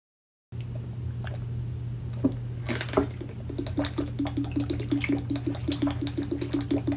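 Water glugging out of a large plastic water bottle as it is chugged, a regular run of gulps about four a second that starts about three seconds in.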